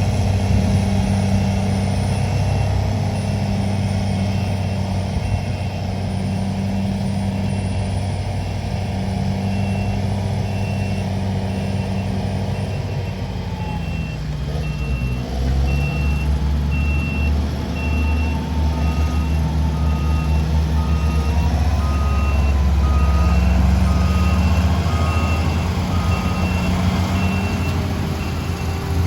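Heavy diesel machinery of a bulldozer and a dump truck running at a dirt fill, with a reversing alarm beeping steadily from a couple of seconds in. A second, lower-pitched backup alarm joins about two-thirds of the way through. Partway through, the engine note drops and then comes in heavier.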